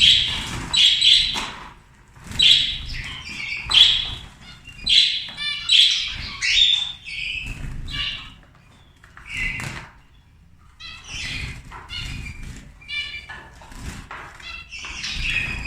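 A flock of zebra finches, some of them black-beaked fledglings, giving many short, buzzy calls at close range, mixed with wings flapping as the birds are chased from their nest box.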